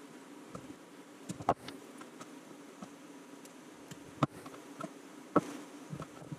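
A few sharp clicks and taps from small metal connectors and a wire crimper being handled as blade connectors are fitted to a power wire, over a steady low hum.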